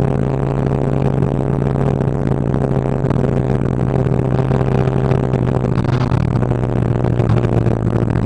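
Motorcycle engine running at a steady speed while cruising, a constant low hum, mixed with steady wind and road noise on the microphone.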